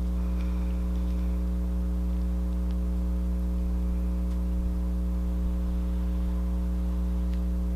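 Steady low electrical mains hum with several higher overtones, with a few faint ticks.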